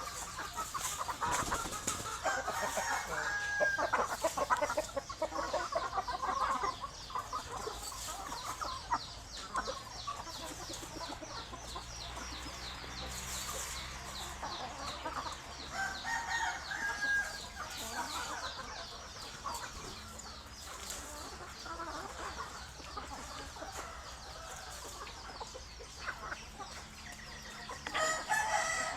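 A flock of chickens clucking continuously, with a rooster crowing a couple of times.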